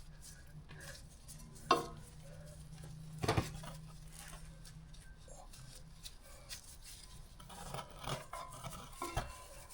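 Hands working exhaust heat wrap around a motorcycle's exhaust header: light rubbing and small clinks, with two sharper knocks, one just under 2 seconds in and one just over 3 seconds in. A faint steady low hum runs under the first half.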